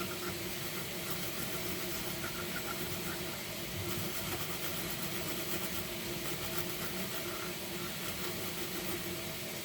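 Steady mechanical hum over an even hiss, with a few constant tones and no distinct events.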